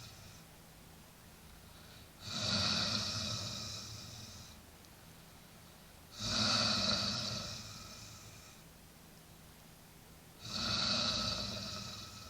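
A man snoring in his sleep: three loud snores about four seconds apart. Each starts suddenly with a low rumble and a raspy hiss, then fades over about two seconds.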